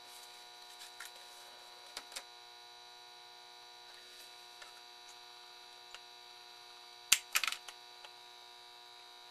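Steady, faint electrical hum with a few light clicks, then a quick cluster of sharp clicks and taps about seven seconds in from handling and working on a small circuit board.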